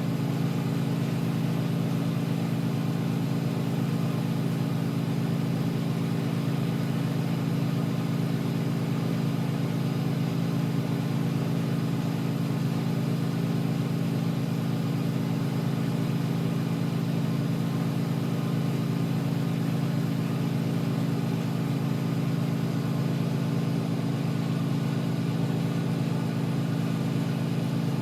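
Steady, unchanging drone of a motor-driven machine, a low hum with several pitched tones.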